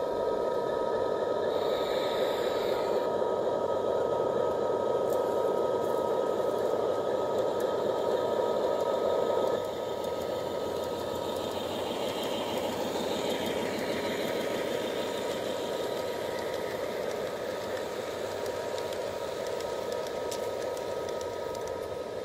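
G-scale model diesel switcher locomotive and flatcars running steadily along garden railway track: a continuous mechanical drone with a fast rattle and two thin steady whining tones, a little quieter after about ten seconds.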